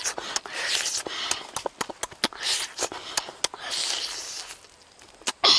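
Close-up eating of a roasted chicken wing: wet lip smacks and chewing clicks, with several loud breathy sucks as meat is pulled off the bone.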